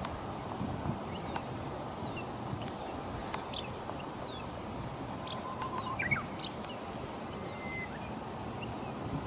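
Faint, scattered bird calls: short chirps, a brief trill and a few quick whistles, one held steady for under a second near the end, over a steady outdoor background noise.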